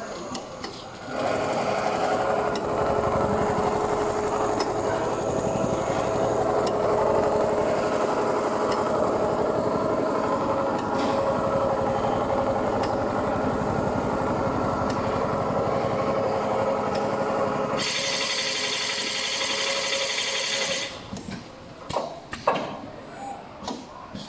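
Richpeace CNC computerized sewing machine stitching at speed, with a fast, steady needle rhythm. For a few seconds near the end a loud hiss joins in. Then the stitching stops and a few clicks and knocks follow.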